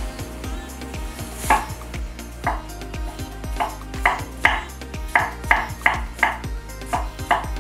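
Chinese-style cleaver chopping onion on a wooden cutting board, sharp knocks about every half second, coming faster in the second half. Background music with a steady beat plays underneath.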